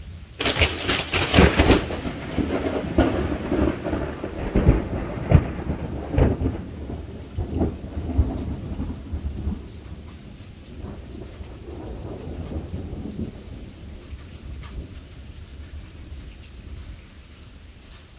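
Thunder with rain: a sudden sharp crack about half a second in, breaking into rolling, rumbling peals that die away over about ten seconds, over steady rainfall.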